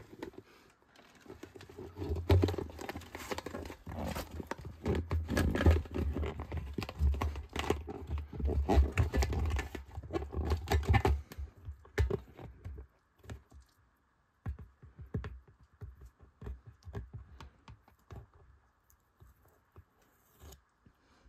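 Rubber bladder of a hydraulic accumulator crumpling and rubbing as it is folded and pushed by hand into the tank's flange opening, with irregular handling knocks. Busy for the first ten seconds or so, then only a few scattered small clicks.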